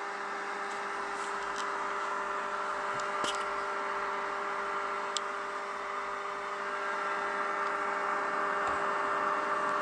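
Philips GoPure 50 car air purifier's fan running, a steady whir with a steady hum-like tone, growing slightly louder about seven seconds in.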